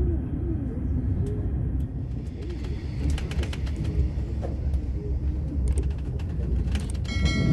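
Birds cooing with repeated low calls over a steady low rumble; a ringing tone starts right at the end.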